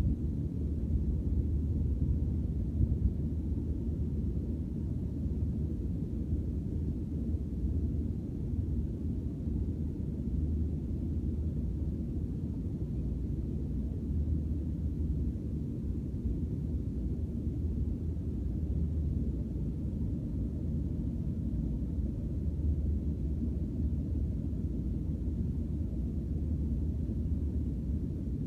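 Steady low rumble of outdoor background noise, with no bird calls standing out.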